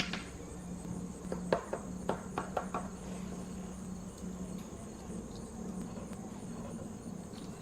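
A quick run of light clicks and taps, as of small plastic toy pieces being handled, about a second in. Under it runs a steady high-pitched chirring buzz and a low hum.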